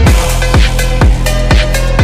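Background electronic dance music with a steady kick drum about two beats a second over a held bass line; the kick and bass come in right at the start.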